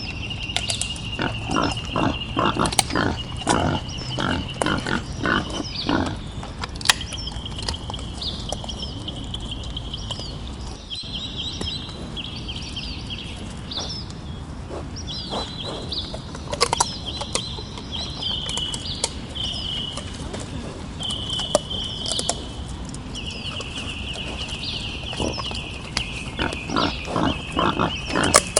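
Wild boar grunting in runs of short, rapid grunts: near the start, again in the middle and near the end. A continuous high-pitched chirring runs behind them.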